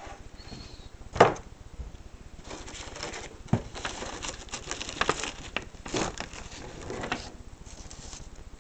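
Paper rustling and fingers handling things on a tabletop. There is a sharp tap about a second in, and a cluster of rustles and knocks from about two and a half to seven seconds in.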